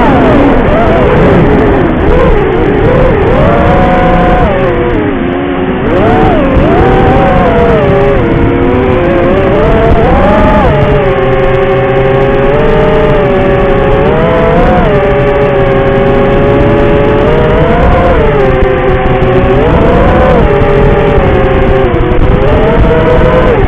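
FPV quadcopter's electric motors whining loudly, several close tones rising and falling together as the throttle changes.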